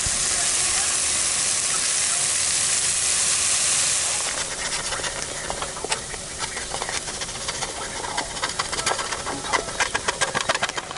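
Ground meat frying in a hot pan, a loud steady sizzle. About four seconds in the sizzle drops lower and turns crackly as chopped green pepper and onion are tipped into the pot of browned meat, with a run of sharp pops and crackles near the end.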